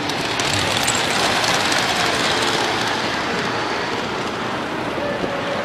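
Model train rolling on its track, a steady rattle of wheels that grows louder over the first second or two and then fades away.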